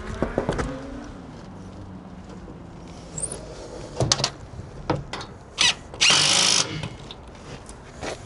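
Power drill with a socket bit running in one short burst of about half a second, driving down the bolt of a solar panel clamp. It is preceded by a few sharp clicks and knocks as the socket is set on the bolt.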